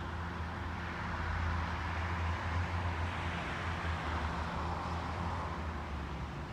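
Steady low mechanical hum with a faint hiss that swells a little near the middle and then eases.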